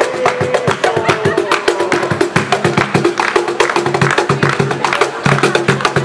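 Music driven by fast, dense cajón drumming, wooden slaps and strikes in a quick rhythm, with held low notes running underneath.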